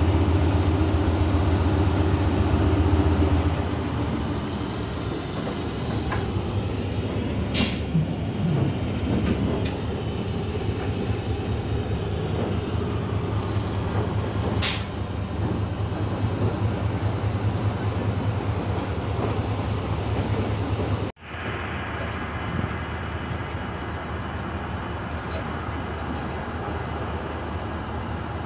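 Diesel locomotive and passenger coaches rolling slowly, heard from on board. A loud steady engine hum eases after a few seconds into continuous running noise of wheels on track, with two sharp clicks. The sound cuts out for an instant about three-quarters through.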